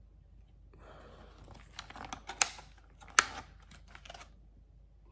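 Plastic bait packaging being handled: rustling and crinkling, with two sharp clicks less than a second apart in the middle.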